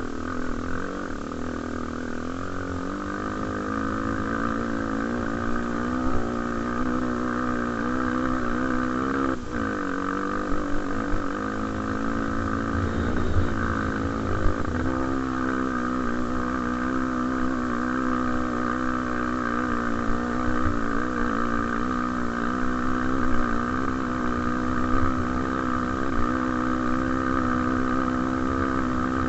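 Honda XR250 Tornado's single-cylinder four-stroke engine running at fairly steady revs while ridden, with a brief drop in revs about a third of the way through before it settles again.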